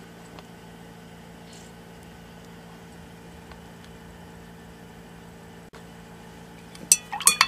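Faint steady hum with a few low steady tones. Near the end, a few sharp clinks of a glass stirring rod against a glass beaker of solution.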